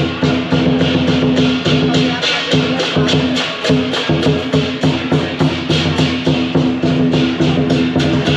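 Music with a fast, steady percussive beat.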